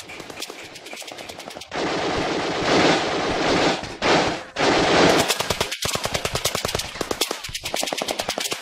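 Rapid automatic rifle fire, a fast stream of sharp shots, as cartoon battle sound effects. The firing turns into a denser, louder barrage from about two to five seconds in, then goes back to steady rapid shots.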